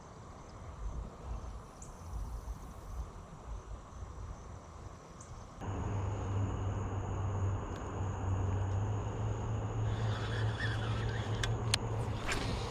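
Outdoor background noise with a low rumble. About halfway it changes abruptly to a steadier low hum with a thin, steady high tone, and a few sharp clicks come near the end.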